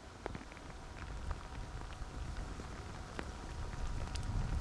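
Outdoor ambience: a steady hiss scattered with many small ticks, with a low rumble growing toward the end.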